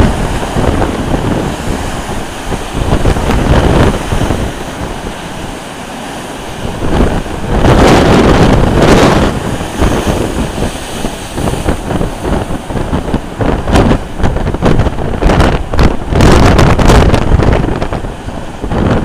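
Storm wind buffeting the microphone over the wash and crash of heavy surf breaking against a sea wall. The gusts surge loudest about eight seconds in and again near the end.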